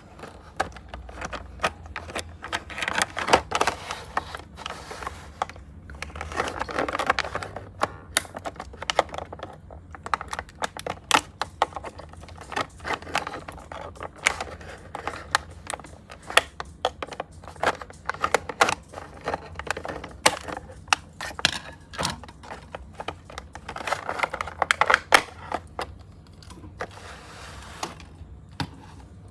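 Toy packaging being handled and opened by hand: plastic and cardboard rustling and crinkling, with many sharp clicks and taps throughout. Bursts of denser crinkling come about three seconds in, around seven seconds, and near the end.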